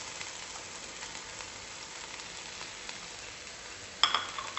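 Chopped onions sizzling steadily in hot coconut oil in a frying pan, as they begin to fry, with a brief louder crackle about four seconds in.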